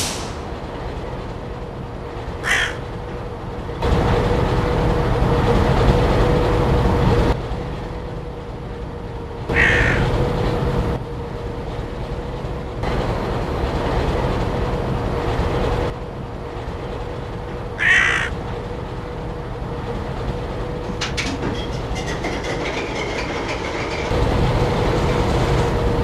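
Diesel locomotive engines running with a steady hum, swelling louder in several stretches. Three short, harsh cries cut in, at about two and a half seconds, ten seconds and eighteen seconds.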